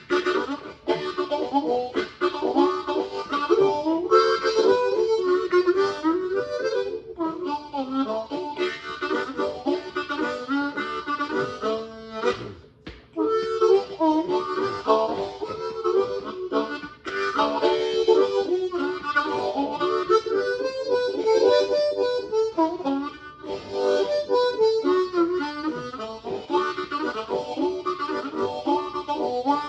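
Harmonica playing: a continuous run of bending notes and chords, breaking off briefly about twelve seconds in before carrying on.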